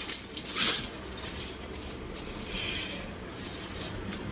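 Handling noise at a workbench: several short bouts of rubbing and scraping.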